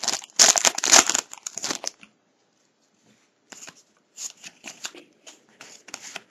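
Foil trading-card pack wrapper crinkling loudly as it is torn and pulled off the cards for about two seconds. After a short pause come softer, short rustles of the cards sliding against each other as they are handled.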